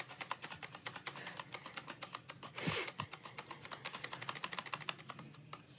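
Rapid light clicking and tapping of small hand-held objects, several clicks a second. A short breath comes about halfway through.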